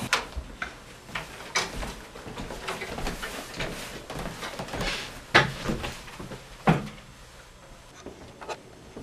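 Footsteps and scattered knocks and clatter of a door and furniture in a small room, with two louder knocks about five and a half and seven seconds in.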